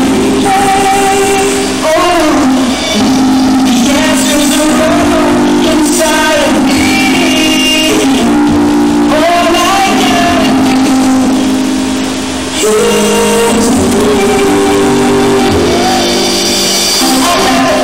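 Recorded pop song playing loudly: a male lead vocal over a full band backing.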